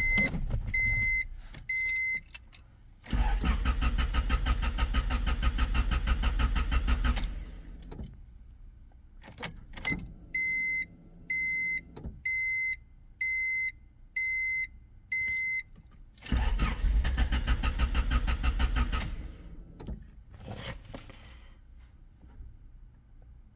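1996 Honda Civic engine cranking on the starter without catching, two attempts, the first about four seconds long and the second shorter, each stopping without the engine running: a no-start condition. Between the attempts an electronic chime beeps repeatedly at an even pace.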